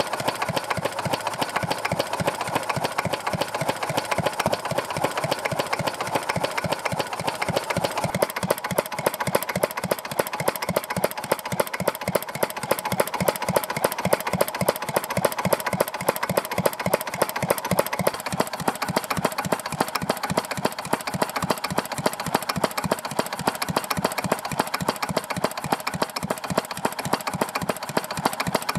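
Old single-cylinder Yanmar stationary diesel engine running steadily and unloaded, a regular knocking beat from its firing strokes that holds an even pace throughout.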